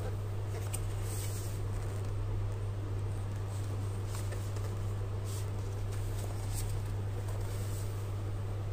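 Hands handling the hard plastic body of a Khind VC9678 cordless handheld vacuum cleaner, giving a few light, irregular taps and clicks over a steady low hum.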